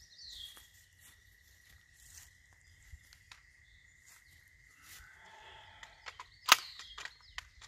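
Quiet outdoor ambience with a faint steady high tone and scattered small clicks. About six and a half seconds in comes one sharp clack, followed by a few lighter clicks.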